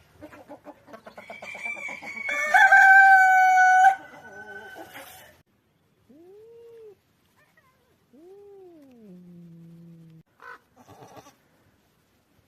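A large fowl calling: a run of quick, clucking pulses builds up over about two seconds into one loud, held, ringing note lasting about a second and a half. Later come two softer calls that rise and then fall in pitch.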